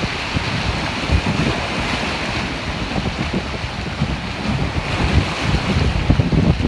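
Rough surf churning and washing against a rocky shoreline in a steady rushing hiss, with wind buffeting the microphone in low, irregular rumbles.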